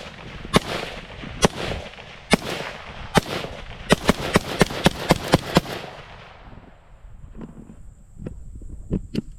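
Suppressed SIG MCX Virtus rifle firing: four single shots about a second apart, then a fast string of about eight shots at roughly four a second, each with a trailing echo. Fainter sharp cracks follow near the end.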